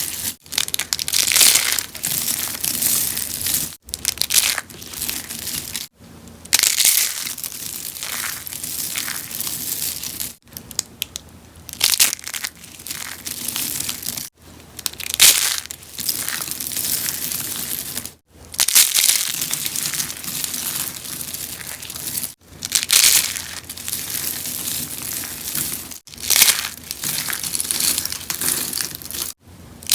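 Rose soaps being crushed, a run of crisp crunching and crackling. It breaks off abruptly every few seconds and starts again at once.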